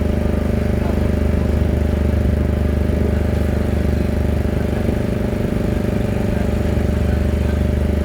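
A large machine's engine running steadily at a constant speed, a low, even hum that does not rise or fall.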